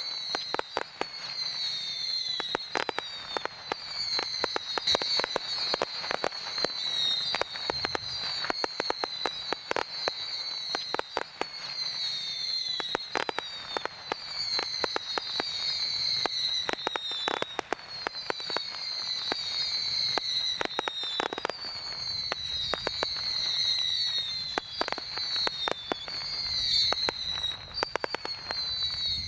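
A 288-shot Roman candle firework battery firing: a rapid, irregular string of sharp cracks, several a second, with a high tone that falls in pitch repeating every second or two.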